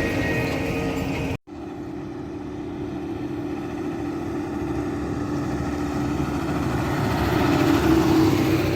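Diesel engine of John Deere harvest machinery running steadily. It cuts off abruptly about a second and a half in, and another machine's engine follows, growing louder toward the end.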